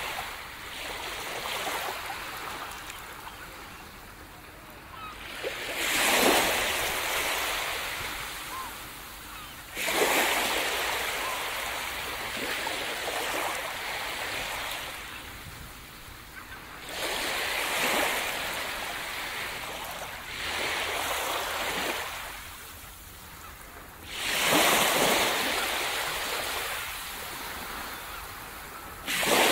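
Small waves breaking and washing up a sandy beach. Five times a surge comes in suddenly and fades away over several seconds.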